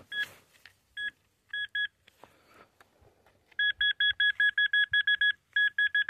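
Handheld metal-detector pinpointer beeping: a few separate short beeps, then from about three and a half seconds in, fast runs of about six beeps a second. The faster beeping means the probe is close to buried metal.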